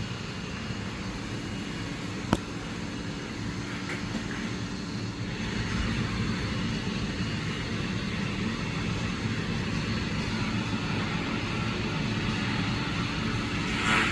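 Roomba robot vacuum running: a steady motor and brush hum, with a single sharp click about two seconds in.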